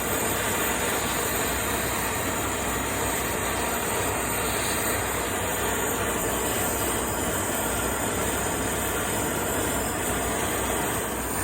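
MAP-gas torch flame burning with a steady rushing hiss while heating the metal around a broken exhaust stud for an aluminum repair stick.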